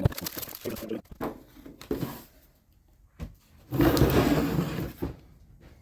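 Handling noises of model airplane parts on a workbench: a few knocks and clatters at first, then a loud rustling scrape about four seconds in, lasting over a second.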